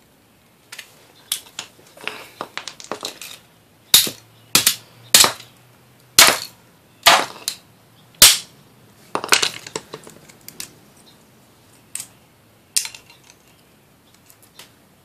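A run of sharp snaps and clacks as an aquarium light fixture is pulled apart by hand with tools, metal pieces and wires being worked free. The loudest half-dozen come between about four and eight seconds in.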